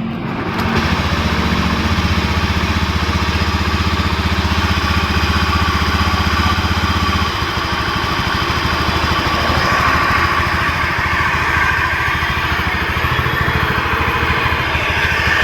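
Honda Beat eSP scooter's single-cylinder engine running with the rough, snoring noise ("kasar dan ngorok") that is the fault being diagnosed. It runs steadily and stronger at first, then its note changes and drops a little about seven seconds in, running on steadily.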